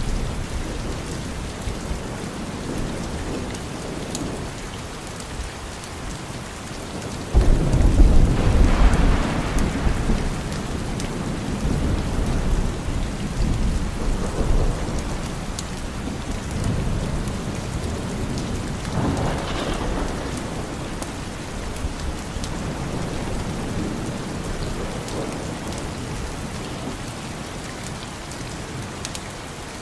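Steady rain with thunder: a sudden loud low rumble about seven seconds in that fades out over several seconds, and a softer roll of thunder around nineteen seconds in.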